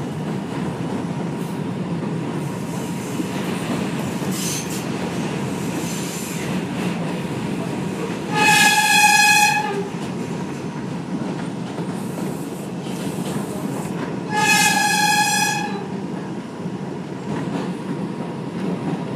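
R142 subway train running on elevated track, a steady rumble of wheels on rail, with the train horn sounding twice, each blast about a second and a half long and about six seconds apart.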